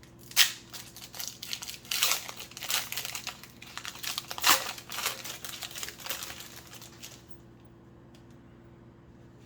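A trading card pack wrapper being torn open and crinkled by hand, in irregular crackling bursts with sharp peaks near the start and about halfway, stopping about seven seconds in.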